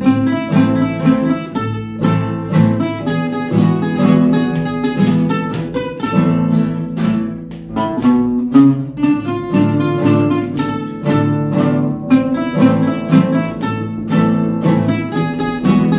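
Two acoustic guitars playing a Peruvian vals: one picks the melody while the other plays the accompaniment.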